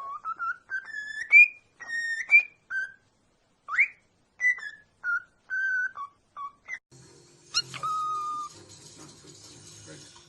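Parrot whistling a string of short clear notes, several sliding up in pitch, then one longer held whistle near the end.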